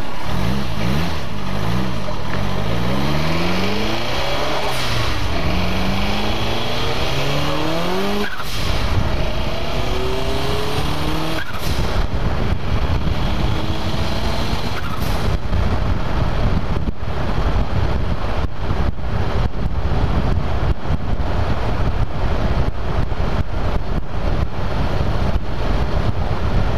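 Turbocharged car engine accelerating hard through the gears, its pitch climbing and dropping back at each shift for the first eleven seconds or so. It then settles into a steady cruise under heavy wind buffeting on the microphone.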